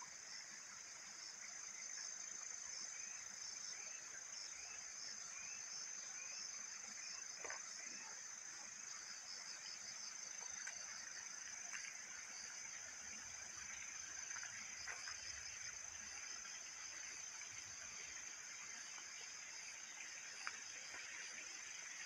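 A chorus of insects trilling steadily, high-pitched and unbroken, with a second, pulsing insect song beside it and a few faint clicks now and then.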